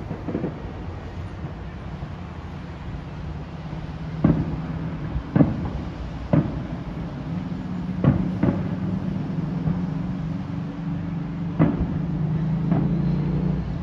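Distant fireworks going off: about seven sharp bangs at irregular intervals, each with a short echo. A steady low hum joins underneath about halfway through.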